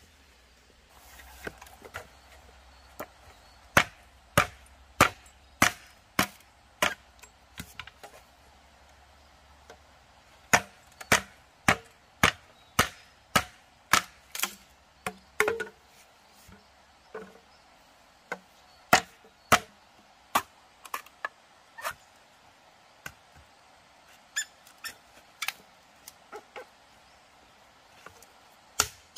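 Machete chopping into a bamboo pole: sharp, steady strokes about every half second, in several runs with short pauses, the last strokes lighter.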